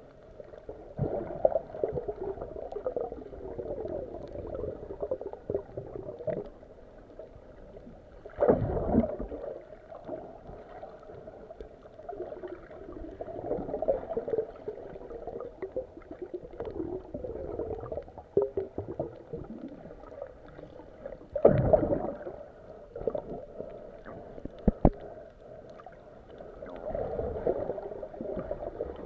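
Muffled underwater sound from a camera held below the surface while snorkeling: water gurgling and sloshing around the housing, with louder surges about eight and twenty-one seconds in.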